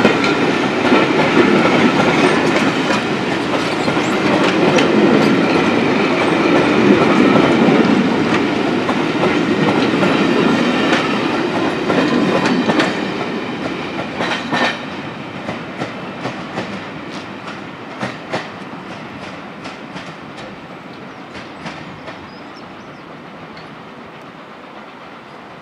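Coaches of a passing passenger train rolling through the station at speed, wheels clattering over rail joints. Past about halfway the rumble fades as the train draws away, leaving a string of separate wheel clicks that grow fainter.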